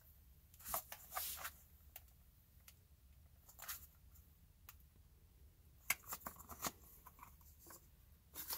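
Plastic SpeedCap vent-cap strip on a deep-cycle golf cart battery being handled and pried open to check the water level: faint scattered clicks and scrapes of plastic.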